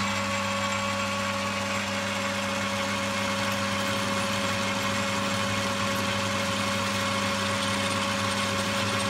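Metal lathe running steadily, its motor and gears humming with a few constant whining tones, as a parting tool cuts into the spinning bar stock. The tool bit needs sharpening and the speed is not quite right, so the cut is not clean.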